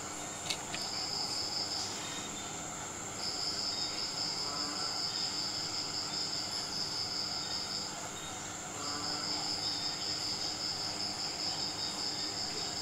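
Crickets trilling at night in long runs of a few seconds with short pauses, over a steady high drone. A single sharp click comes about half a second in.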